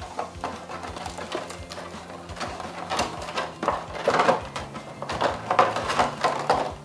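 Clear plastic blister packaging crinkling and crackling as it is handled and pulled out of a cardboard box, louder and busier in the second half.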